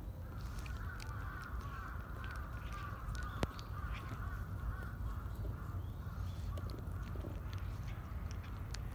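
A cat chewing dry kibble, a scatter of small crisp crunching clicks, over a steady buzzing drone in the background. A single sharp click comes about three and a half seconds in.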